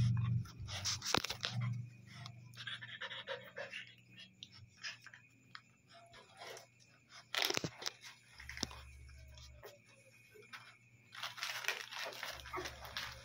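Eight-day-old puppies stirring and nursing at their mother: soft scattered rustling and clicking against the blanket with faint small puppy noises, one sharper click about halfway and busier rustling near the end.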